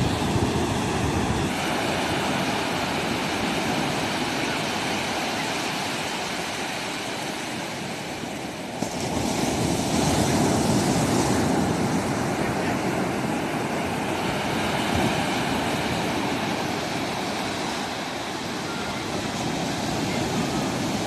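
Sea waves breaking and washing up on a beach, a steady rushing surf that swells louder about nine seconds in.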